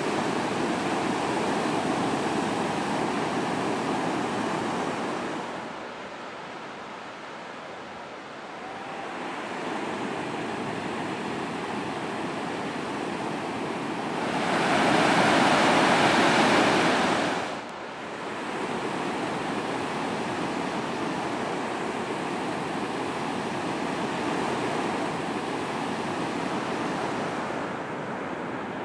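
Ocean surf breaking and washing up a sandy beach in a steady rush. It grows louder for a few seconds about halfway through, then drops off suddenly.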